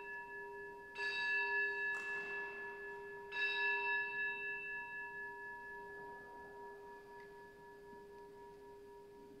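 Altar bell rung at the elevation of the consecrated host: the ringing of a strike just before, then two more strikes about two and a half seconds apart, each ringing on and fading slowly.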